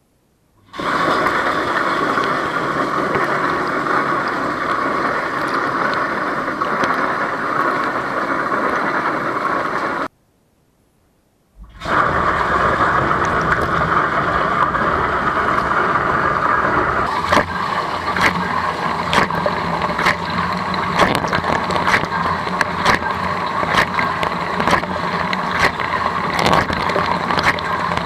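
Hansa dishwasher running, heard from inside the tub: water spraying from the spray arms as a dense, loud hiss. It cuts off about ten seconds in, falls silent for a second and a half, then starts again, and from about seventeen seconds in frequent sharp ticks and knocks sound through the spray.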